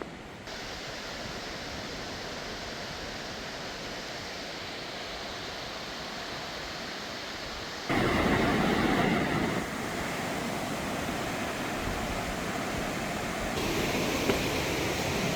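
Steady rushing of a swollen river's water. It jumps abruptly louder about halfway through, then changes level twice more.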